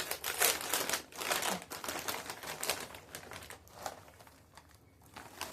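Crinkling of a snack bag of corn puffs being handled, a dense rapid crackle that dies away after about three seconds, leaving a few faint clicks.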